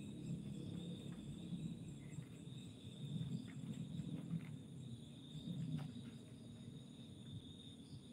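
Crickets and other night insects chirring steadily, a constant high trill, with a faint low rumble underneath.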